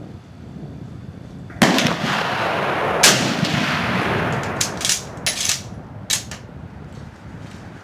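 Mosin-Nagant M44 carbine, 7.62×54mmR, firing: one loud shot about a second and a half in with a long rolling echo. A second sharp crack follows about a second and a half later, then a few shorter sharp cracks and clicks.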